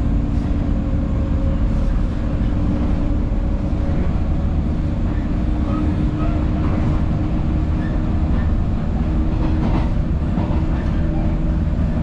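Interior of a moving electric commuter train: the steady rumble of wheels and running gear on the track, with a steady hum running under it and a few faint rattles.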